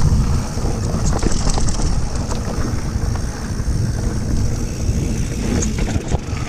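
Wind rushing over a helmet-mounted action camera's microphone as a mountain bike rolls fast down a dirt trail, with steady rumble from the tyres and scattered clicks and rattles from the bike.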